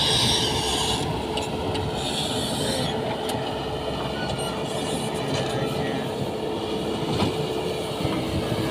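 Earthmoving machine's engine running steadily as it works, with a steady hum and a few short knocks.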